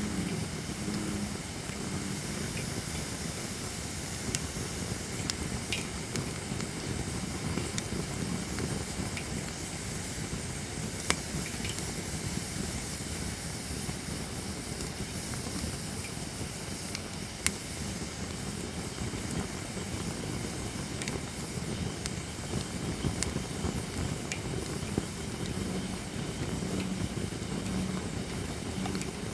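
Holly firewood burning in a campfire: a steady hiss of flame with sharp pops of cracking wood now and then, two of them louder, about eleven and seventeen seconds in.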